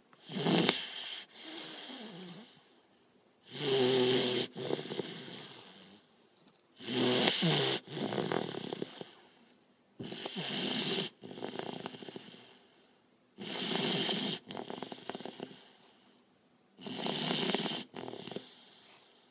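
A sleeping pet snoring in a steady rhythm: six loud snores about every three and a half seconds, each lasting about a second and followed by a quieter breath that fades away.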